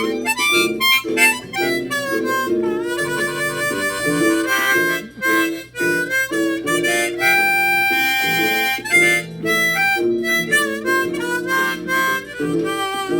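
Harmonica playing a bluesy instrumental intro over guitar accompaniment, with bent, wavering notes and a long held chord about seven seconds in.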